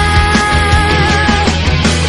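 Rock music with drums and bass, and a long held note that ends about a second and a half in.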